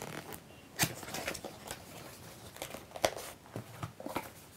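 Cardboard box and packaging being opened and handled: scattered light taps, scrapes and rustles, the sharpest about a second in.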